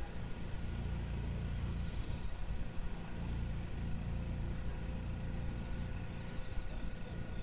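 Crickets chirping in a quick, even rhythm, with short pauses, over a steady low rumble.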